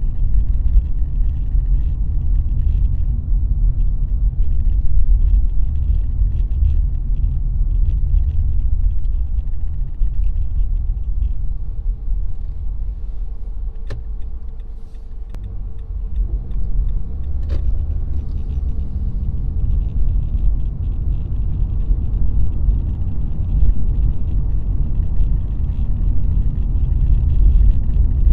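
Car driving: a steady low rumble of road and engine noise that eases off briefly about halfway through, then picks up again. A few faint clicks come near the middle.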